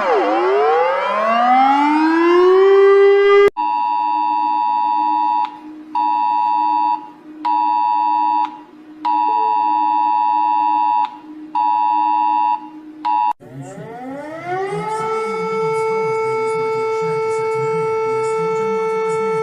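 Emergency alert alarm tones. First a siren drops in pitch and winds back up. It cuts to a steady multi-note alert tone sounding in uneven on-off pulses for about ten seconds. Then a siren rises and settles into a steady wail.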